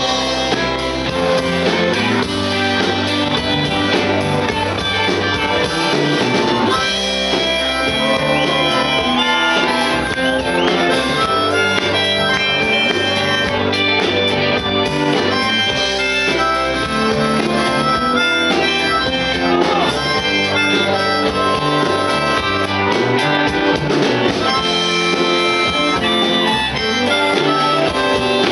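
Live blues band playing: a harmonica, cupped against a handheld microphone and amplified, over electric guitars, bass guitar and drums.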